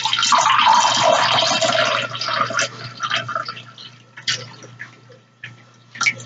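Liquid rushing and hissing in a plastic water bottle for about two and a half seconds, then a few scattered small clicks.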